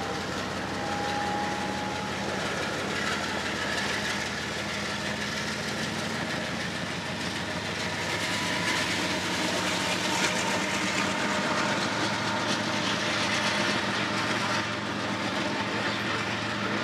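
Freight train of covered hopper cars rolling past, with steady wheel-on-rail rumble, a faint high squeal in the first couple of seconds and a low engine hum underneath; it grows a little louder about halfway through.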